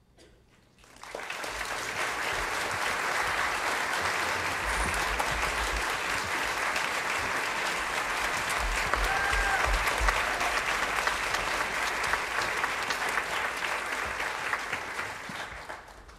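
Audience applauding, breaking out about a second in after the final notes of an orchestral piece and fading away near the end.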